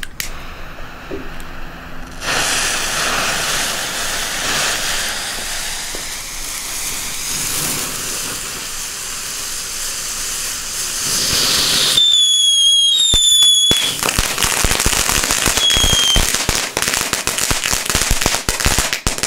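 Small fountain fireworks (Lesli Sharky youth fireworks) hissing steadily as they spray sparks, starting about two seconds in and growing louder past the middle. A few short whistles sound near the middle, and crackling follows toward the end.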